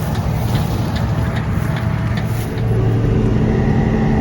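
Combine harvester's diesel engine running, a steady low hum that gets louder and more even about two and a half seconds in.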